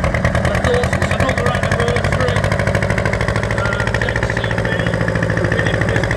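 Two-cylinder diesel engine of a vintage JCB 1 grave digger backhoe running at a steady idle, its firing beat even and unchanging.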